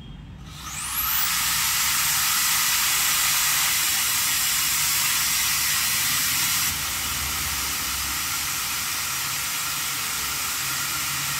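Corded electric drill spinning up with a rising whine about half a second in, then running steadily as it bores into the wall. Its sound drops a little about seven seconds in and carries on.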